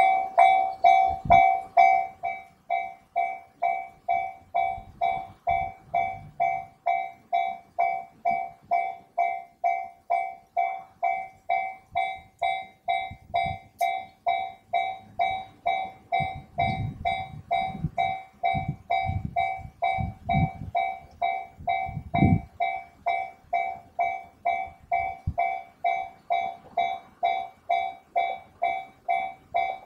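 Japanese railway crossing warning bell ringing steadily, about two fading strikes a second. It signals an approaching train, with the crossing barriers down.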